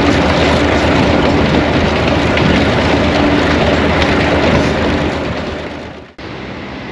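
A train running: a steady loud rumble and rush with a faint engine hum. It fades about five seconds in and cuts off sharply shortly after, leaving quieter background noise.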